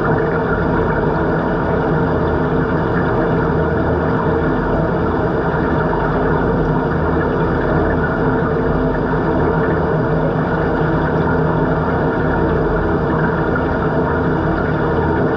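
Steady mechanical hum heard underwater in a swimming pool, the drone of the pool's pumps and filtration carried through the water, with several steady tones and no change in level.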